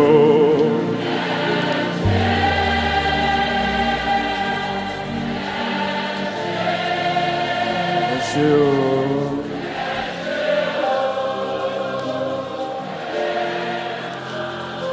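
Slow gospel worship music with voices holding long, sustained wordless notes like a choir. A low bass note comes in about two seconds in.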